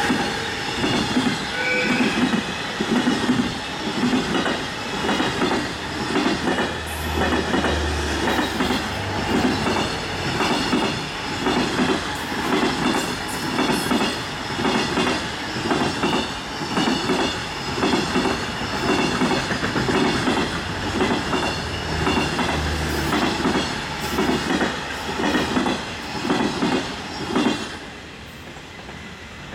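Container wagons of a high-speed freight train running past, their wheels clacking in an even rhythm over the rail joints. The sound drops away suddenly near the end as the last wagon goes by.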